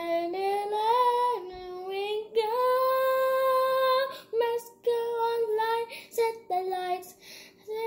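A young girl singing solo, with a long held note about halfway through.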